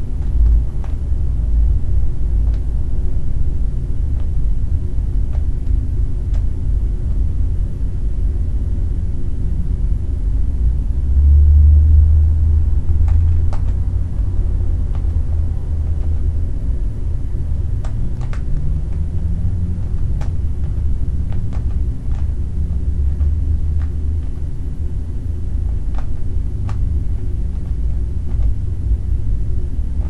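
A steady low rumble, swelling briefly just before the middle, with faint scattered clicks of a Rubik's cube's layers being turned by hand.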